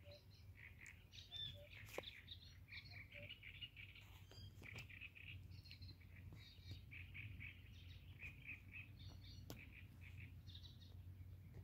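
Faint birdsong: small birds chirping in many quick short notes, over a low steady rumble, with a few light clicks.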